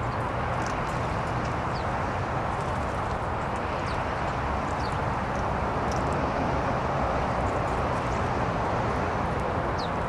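Scattered brief, high chirps from small songbirds over a steady, even background hiss.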